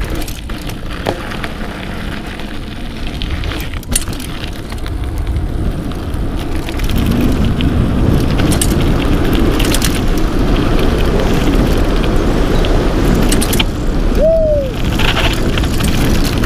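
Wind rushing over the microphone and tyre noise from a mountain bike riding along a paved road, with scattered small clicks. It gets louder about halfway through, and a brief falling squeak comes near the end.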